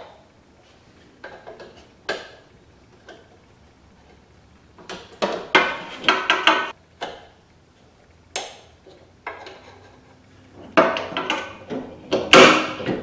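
Screwdriver and the metal end fitting of a new rear-glass lift-support strut clicking and clinking against the metal mount as the strut is fitted. The sharp metallic clinks come in irregular bursts and ring briefly, with the loudest cluster near the end.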